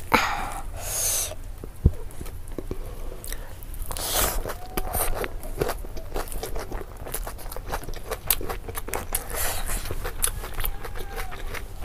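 Close-miked eating sounds: wet chewing and lip smacks from a mouthful of rice mixed with chicken curry, with some crunch. About the first second and a half also holds fingers squishing and mixing the rice.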